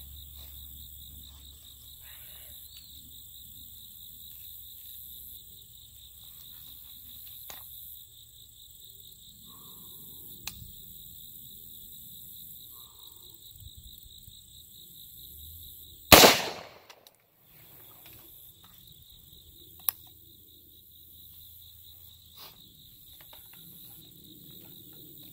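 A single rifle shot about 16 seconds in, sharp and loud with a brief echo, fired at a close target to check the optic's zero.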